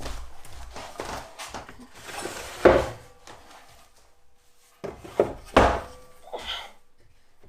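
Wooden knocks and thunks as pieces of wood are handled and set down, with a few sharp knocks: one about three seconds in and a cluster a little after five seconds.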